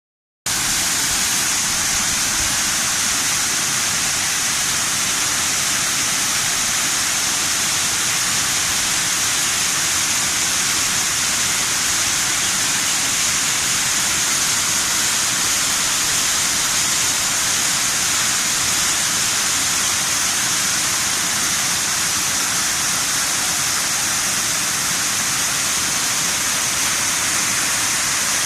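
Waterfall: a steady, unbroken rush of falling and splashing water.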